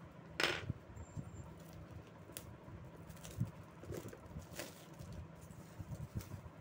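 Hands handling a smartphone's cardboard retail box and its plastic wrapping. A short rustling scrape comes about half a second in, followed by scattered light taps and rustles.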